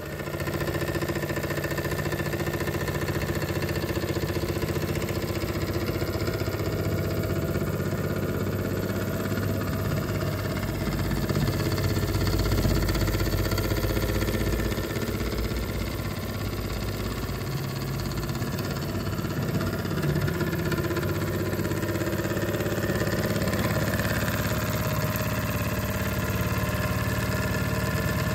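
Small model steam engine running steadily, its boiler fired by a hydrogen gas burner, with the gas valve serving as the throttle. It gets a little louder for a couple of seconds about halfway through.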